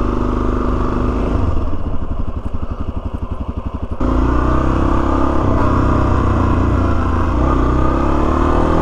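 Single-cylinder dual-sport motorcycle engine running at low speed. From about a second and a half in it turns to a quieter, rapid, even pulsing. About four seconds in it steps up louder, and its pitch then climbs slowly as the bike gets under way.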